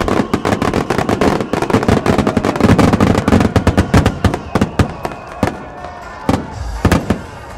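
A barrage of aerial firework shells bursting: a dense, rapid run of bangs and crackles for the first four and a half seconds, thinning to a few separate bangs near the end.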